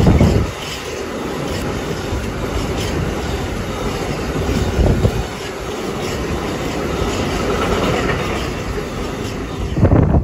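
Freight train of rail tank wagons rolling past: a steady rumble with regular clacking of wheels over the rail joints and a few heavier thumps. The sound drops away abruptly as the last wagon passes, right at the end.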